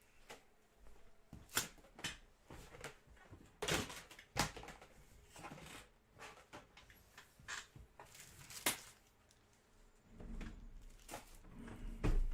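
Trading-card hanger boxes and packs being opened and handled: an irregular run of sharp cardboard and wrapper crinkles, rips and clicks, with a louder low thump near the end.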